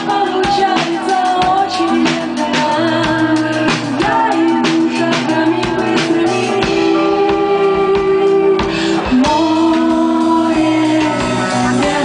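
Live band playing a pop-rock song: electric guitar and drum kit with a tambourine shaken and struck by the singer, steady sharp hits through the first half.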